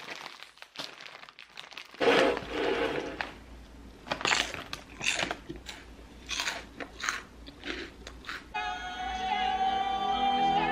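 A plastic snack bag rustling, then about five separate crunches as crunchy snack chips are bitten and chewed. Music begins about two seconds before the end.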